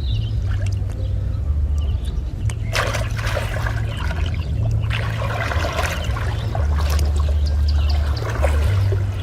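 Water splashing and trickling, in two louder spells about three and five seconds in, over a low rumble throughout.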